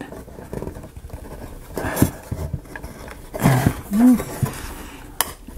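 Light handling noise and a couple of sharp clicks as a stubborn tab of a book nook kit piece is forced into its slot, with a short strained grunt of effort about three and a half seconds in.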